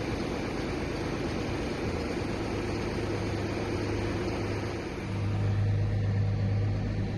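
Diesel engine of farm machinery running steadily, with a low hum that grows louder about five seconds in.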